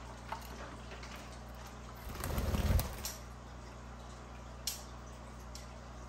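Soft sounds from a budgie's cage over a steady low hum: a few faint clicks, and a brief low rustling whoosh about two seconds in. No clear chirping.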